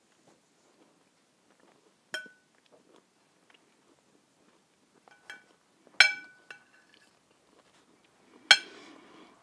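Metal knife and fork clinking against a ceramic plate while cutting food: about five sharp, ringing clinks, the loudest two about six and eight and a half seconds in. Soft chewing follows near the end.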